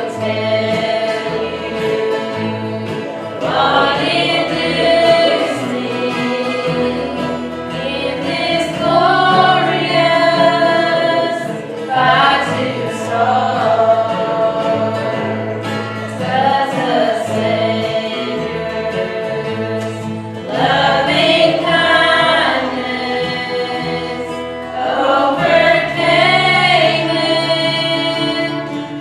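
Choir singing a gospel song with instrumental accompaniment and a steady bass line.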